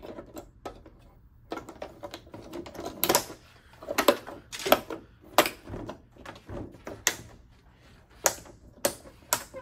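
An irregular series of sharp clicks and snaps as the black frame of an LED TV's backlight assembly is pressed down over the diffuser sheets and clipped into place around its edges.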